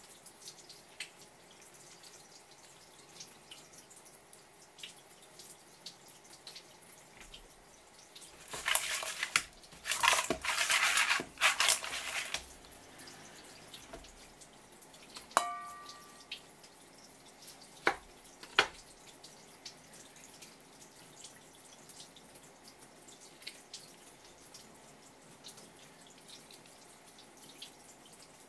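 Cut pieces of raw swimming crab being tossed by hand in a stainless steel bowl: about four seconds of wet rustling and squelching, then a knock that sets the bowl ringing briefly, and two sharp clicks. Faint irregular ticks run under it all.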